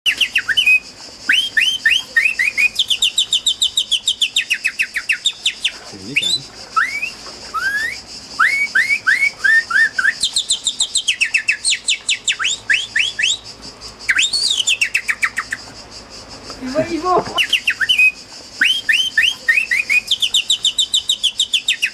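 Bird song: runs of rapid, down-slurred whistled notes and fast trills in repeating phrases with short pauses between them. About 17 seconds in, a brief lower wavering call cuts in.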